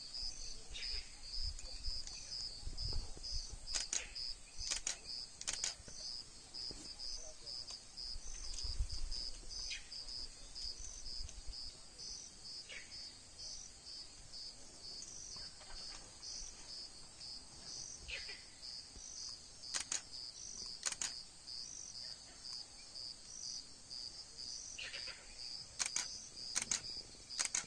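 Insects chirping in an even, unbroken rhythm of about three high pulses a second, with a few sharp clicks now and then.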